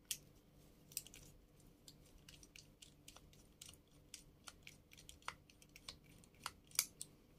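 Faint, irregular small clicks and ticks of a precision screwdriver turning screws in a 3D-printer hotend's finned metal heatsink during disassembly.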